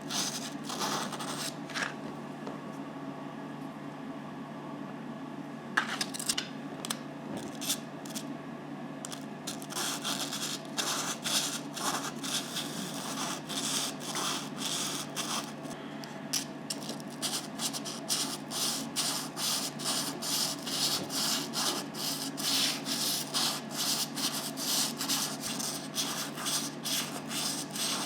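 Fire opal stone rubbed by hand on dry sandpaper, a scratchy rasping stroke after stroke. The strokes are sparse at first, then after about ten seconds they settle into a steady rhythm of about two a second and grow a little louder.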